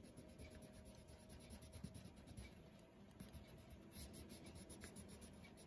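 Faint scratching of a colored pencil stroked back and forth over paper, shading in several quick strokes a second.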